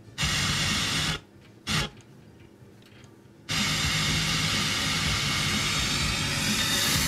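FM static hiss from a Fisher tuner over the speakers. It cuts in for about a second, comes back in a short burst, then holds steady from about halfway through, while the wire antenna is moved around. This is weak FM reception, which the owner finds awfully weak and suspects a problem with the FM antenna plug.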